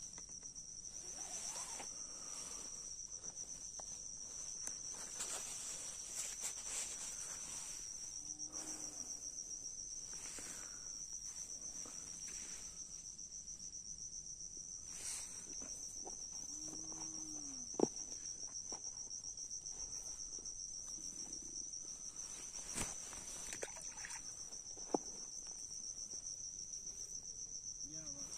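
Insects trilling in a steady, high-pitched chorus, with a couple of brief sharp clicks about two-thirds of the way through.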